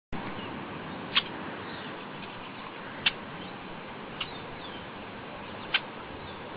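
Short, sharp bird calls, four in about six seconds, with fainter chirps between them over a steady background hiss.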